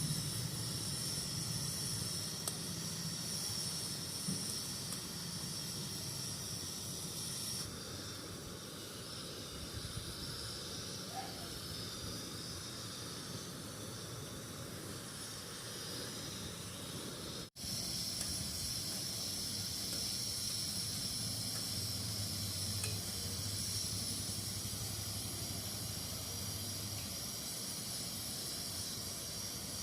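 Pot of spiced water for kadha boiling hard on the stove and reducing: a steady hiss of bubbling and steam. A split-second dropout comes just past halfway, then the same hiss carries on.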